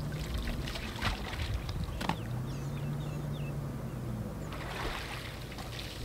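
Water splashing and trickling as an African elephant works its trunk in a shallow waterhole, with a couple of sharper splashes in the first two seconds. A low steady hum runs under it and fades out in the second half.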